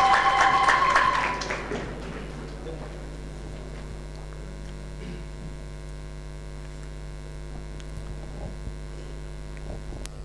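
Applause with a high held tone over it, dying away within the first two seconds, then a steady electrical mains hum from the microphone and sound system.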